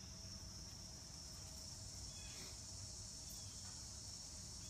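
Steady high-pitched insect chorus, with a low background rumble and a couple of faint short chirps; the bending of the branches makes no sound that can be heard.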